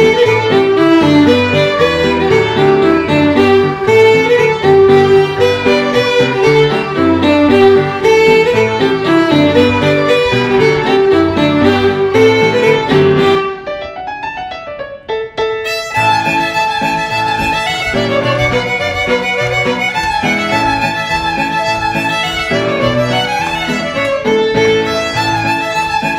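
A group of fiddles playing a tune together. The music drops away for about two seconds just past the middle, then the fiddles start again on a different passage.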